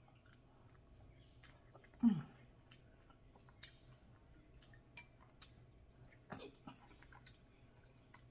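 Close-up mouth sounds of eating: soft wet chewing clicks and smacks as snow crab meat dipped in a cream sauce is eaten, with a short falling "mmm" hum about two seconds in.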